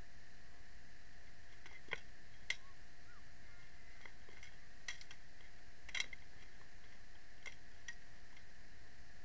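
Steel swords striking plate armour and shields in an armoured duel: about six scattered, sharp metallic clanks, the loudest about two and a half and six seconds in, heard faintly over a steady hiss.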